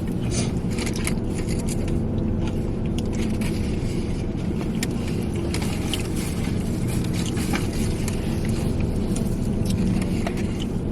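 Steady rumble of a vehicle engine running, with scattered small clicks and rustles over it.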